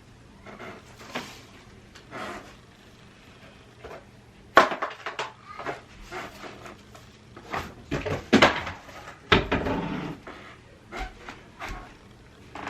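Household tidying sounds in a small room: scattered knocks, bumps and rustling as things are handled and put away. There is a sharp knock about four and a half seconds in, and a busier stretch of bumps and scraping around eight to ten seconds.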